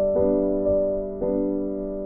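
Background music: slow piano chords, each struck and left to fade.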